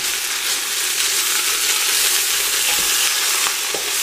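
Beef chunks and half a calf's foot searing in hot olive oil with softened onions and garlic in a pressure cooker, stirred with a wooden spoon: a steady sizzle with a couple of soft spoon knocks near the end.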